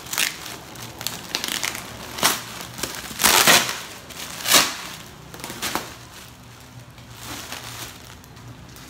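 Plastic parcel wrapping crinkling and rustling as it is handled and its packing tape is pulled off, in a run of irregular loud crackly bursts that grow quieter for the last few seconds.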